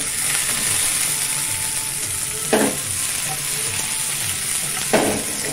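Mushrooms and bell peppers sizzling in olive oil in a non-stick frying pan as they are stirred with a spatula and shaken, with a steady hiss. Two short knocks stand out, about two and a half seconds in and again near the end.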